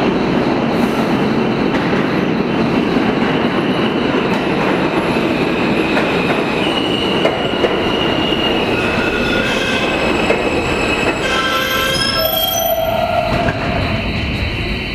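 R160A subway train pulling into an underground station: a loud, steady rumble of wheels on rail. High squealing tones come in about halfway through as it brakes, and a run of stepped tones follows near the end as it slows. The rumble dies away as the train comes to a stop.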